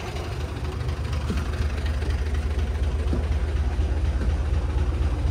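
Diesel engine of a front-engined, non-air-conditioned bus idling, a steady low throbbing hum heard from inside the cabin, growing a little louder over the first couple of seconds.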